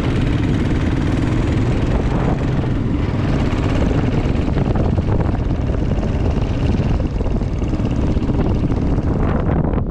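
Motorcycle engine running at road speed with steady wind noise on the microphone.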